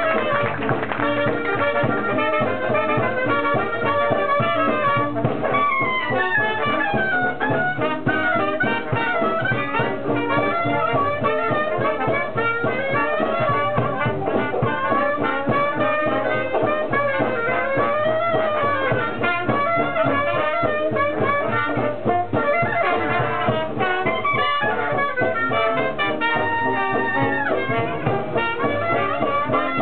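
Live traditional New Orleans jazz: a clarinet plays a winding melody line that rises and falls, over banjo and piano accompaniment.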